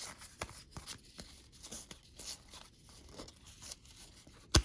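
Trading cards and pack wrappers being handled: a run of small cardboard flicks, taps and light crinkling, with one loud sharp snap near the end.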